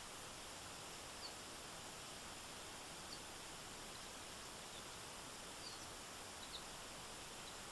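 Steady hiss of a flowing stream, with about half a dozen short, high bird chirps scattered through it.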